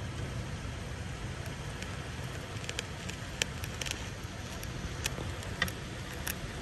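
Heavy rain falling in a steady rush, with about ten sharp taps of drops striking the window scattered from about a second and a half in.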